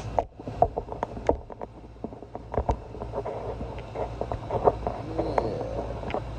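Scattered light clicks and knocks of small generator parts and tools being handled during reassembly, with a brief squeak about five seconds in, over a steady low hum.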